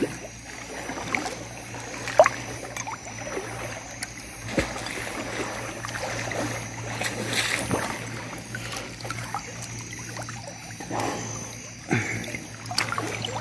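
River water sloshing and trickling around a person wading, with scattered small splashes as they move and handle things in the water.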